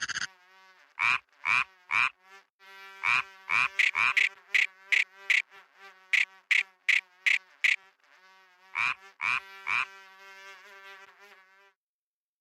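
Frogs croaking in short, pitched calls, repeated in bunches of three to seven at about two a second, over a steady low hum. The calls and hum stop about a second before the end.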